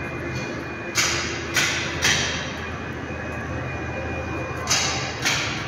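Steady workshop machinery hum with a faint high whine. It is broken by sudden bursts of hiss that fade within a fraction of a second: three about half a second apart a second in, and two more near the end.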